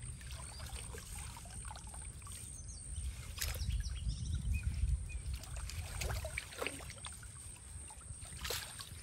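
Pond water sloshing and dripping as hands work through a wet bamboo-framed fishing net, with a few short, sharp splashes.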